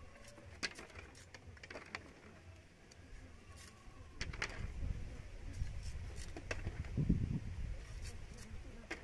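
Machete blade clicking and scraping on thin green bamboo strips as they are split into ties, in scattered sharp clicks. A low rumble runs underneath and grows louder about halfway through.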